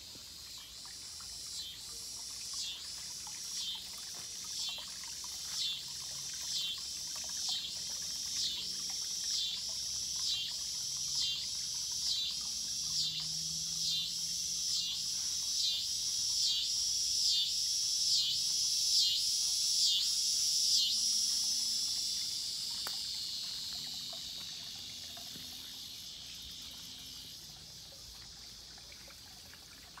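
A cicada's buzzing call, pulsing about once a second and growing louder, then running on as a steady buzz that fades away over several seconds. The trickle of a garden water feature runs underneath.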